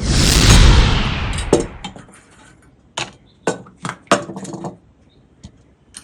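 Kitchen dishes and utensils clattering: a loud rattling burst for about two seconds that fades away, then a few separate clinks and knocks.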